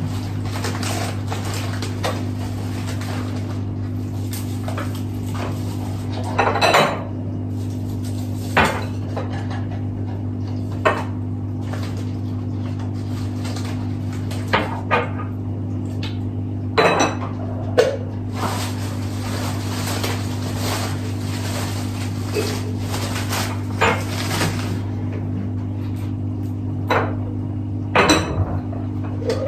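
Dishes and cutlery clinking and knocking now and then, with a few louder clatters, over a steady low hum.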